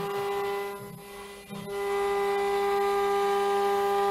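CNC router spindle with an eighth-inch straight end mill taking a light roughing pass. It gives a steady high whine over cutting hiss, which dips briefly and then steps up louder about two seconds in as the bit moves up and down through the logo path.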